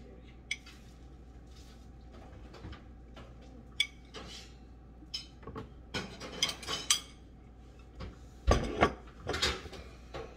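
Kitchen clatter of dishes and cutlery: scattered clinks and knocks, a few single ones at first, then a quick run of them, with the loudest couple of knocks near the end.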